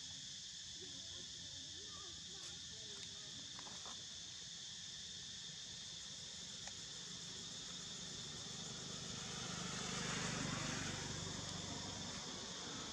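Steady high-pitched insect drone from cicadas or crickets, with a few faint warbling calls in the first two seconds. A low rushing noise swells up about ten seconds in and eases off again.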